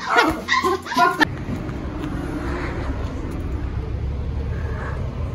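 A woman speaks briefly for about the first second, then the sound changes suddenly to a steady low rumble with a light hiss.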